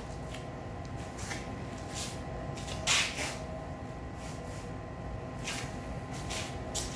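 A few short scrapes and knocks of parts being handled while the front wheel, axle and spacers are fitted, the loudest about three seconds in, over a steady background hum.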